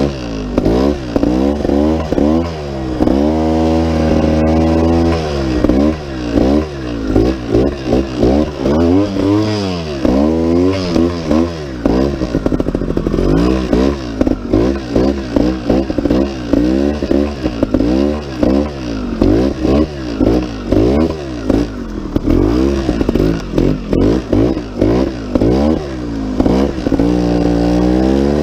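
GasGas 280 TXT Pro trials bike's single-cylinder two-stroke engine under hard riding, the throttle blipped so the engine revs rise and fall about once a second. The revs are held steady for a couple of seconds near the start.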